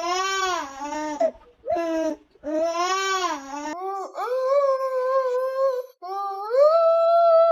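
An animal's long, drawn-out vocal calls: five in a row, the first three bending up and down, the last two long and held, the last rising in pitch and then holding.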